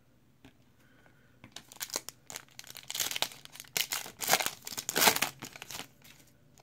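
A Donruss Optic basketball card pack wrapper being torn open and crinkled by hand, a run of crackling tears that starts about a second and a half in and stops about a second before the end.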